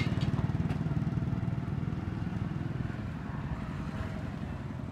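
A small motorcycle engine running with a fast, even low pulse that gradually fades.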